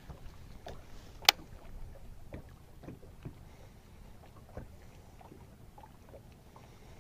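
Baitcasting reel being reeled in after a cast, with one sharp click about a second in and faint scattered ticks after it, over low wind and water noise around a small boat.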